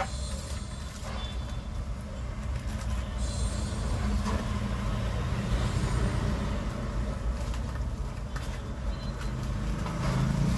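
A motor vehicle's engine running steadily, growing a little louder through the middle and easing off again.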